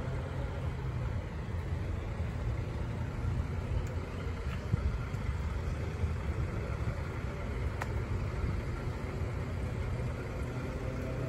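Steady low rumble of a SunRail commuter train pulling away down the track.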